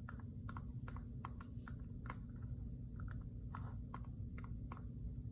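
Wax-coated slime being pressed and squeezed, its hardened wax shell cracking in small, sharp, irregular crackles and clicks, a few each second.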